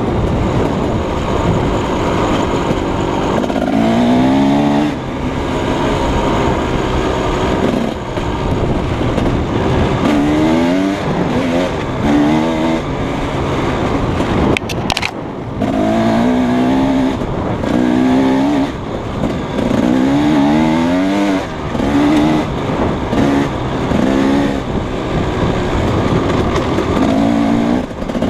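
Husqvarna 300 two-stroke single-cylinder dirt bike engine pulling under load, its pitch rising again and again as the throttle is opened and it climbs through the revs, over wind and tyre noise. A short sharp click about halfway through.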